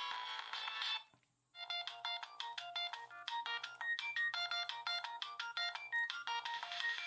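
Siemens A62 mobile phone playing ringtones: a bright electronic tune with several notes at once stops about a second in, and after a short pause a second quick-noted tune plays until it cuts off near the end.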